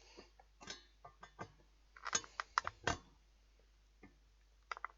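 Irregular clicks and knocks of a fan heater's parts being handled and pressed down by hand, busiest about two to three seconds in.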